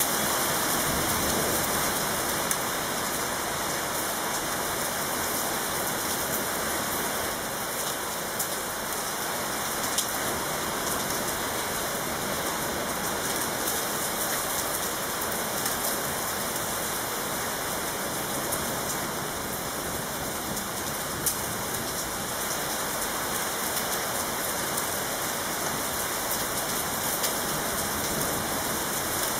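Heavy rain pouring down in a thunderstorm: a steady, dense hiss with a few sharp drop hits standing out here and there.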